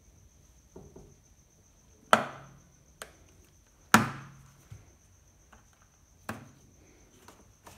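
Sharp knocks and snaps as the wire spring clamp is worked onto the rubber door seal of an LG WD12020D front-loading washing machine. The two loudest come about two seconds apart, each with a brief ringing after it, amid a few fainter clicks.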